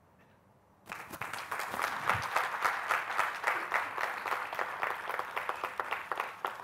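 Audience applauding, starting suddenly about a second in and carrying on steadily.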